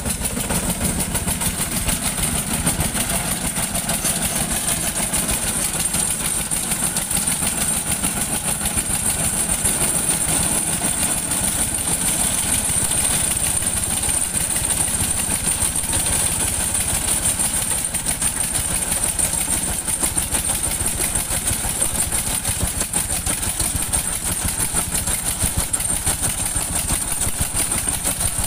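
Engine running steadily at constant speed, with an even rapid pulsing and no change in pitch.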